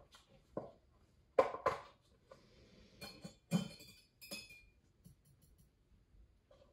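Sharp taps from handling plastic culture containers, then a cluster of ringing clinks about three to four and a half seconds in as long steel forceps are drawn out of a glass jar.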